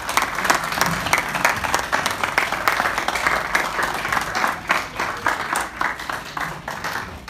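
Audience clapping and applauding. It starts right after an introduction and tapers off near the end.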